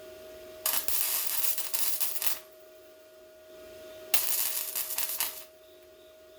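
Welder laying short stitch welds on sheet metal: two bursts of crackling, each about a second and a half long, with a pause between them and a steady hum underneath.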